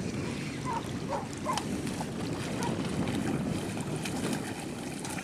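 Wind buffeting the microphone in a steady low rumble, over small waves lapping on a gravel shore. A few faint short high notes come about a second in.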